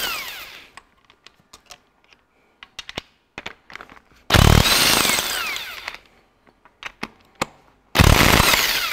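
Makita BTW450 cordless impact wrench hammering the cylinder head bolts and nuts loose on a Ferguson 23C diesel engine, in short loud bursts: one dying away in the first second, one of about two seconds in the middle, and one starting near the end. Between the bursts, the socket clicks and clanks as it is moved onto the next bolt.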